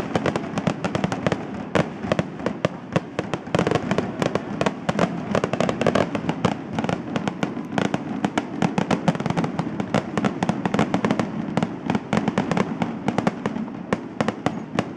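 Fireworks display going off in a dense, continuous barrage: many sharp bangs and crackles in quick succession over a steady rumble.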